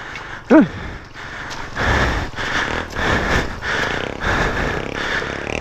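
A 160 cc motorcycle engine running roughly and unevenly under load from about two seconds in. By the rider's account it is too weak to pull.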